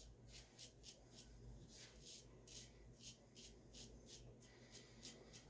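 Faint, short scraping strokes of a razor cutting about a day's stubble through shave cream, repeated two to three times a second.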